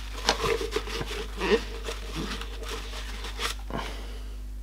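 Plastic handling noises: a Dyson V7's clear plastic dust bin being turned over in the hand, with a few light knocks and rubbing of plastic, over a faint steady low hum.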